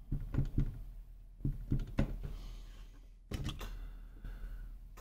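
Irregular sharp clicks and taps of a marker pen and a computer motherboard being handled against a plastic sheet while mounting holes are marked, some in quick clusters of two or three.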